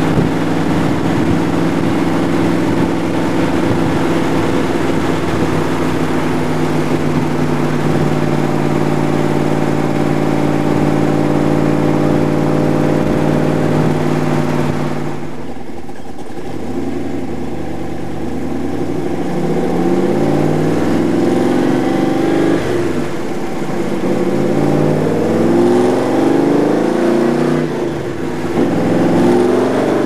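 Roush 427SR V8 in a Superformance MkIII Cobra replica, heard from the passenger seat of the open car. It runs at a steady cruise, is backed off about halfway through as the car slows, then pulls hard through the gears, its pitch rising with each gear and dropping briefly at the shifts.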